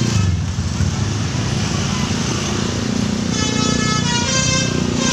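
Multi-tone musical vehicle horn of the Indonesian telolet/basuri kind sounding a tune of held notes that change pitch. The notes are loudest from about three seconds in, over the low rumble of vehicle engines.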